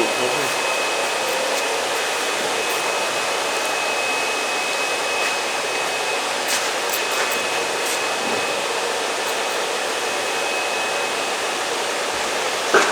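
Steady loud rushing of an air blower or fan, with a faint high whine that stops about eleven seconds in.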